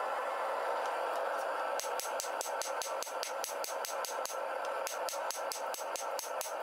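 Hand hammer striking a glowing bar of bloom steel on an anvil in rapid, even blows, about five a second, starting about two seconds in with a short pause a little past the middle. A steady rushing noise runs underneath.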